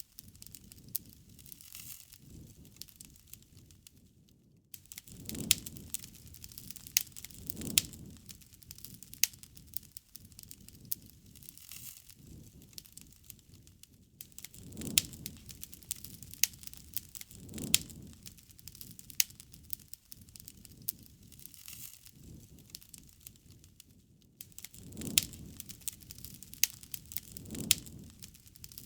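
Wood bonfire crackling, with frequent sharp pops and snaps. A low rushing swell rises and fades in pairs about every ten seconds.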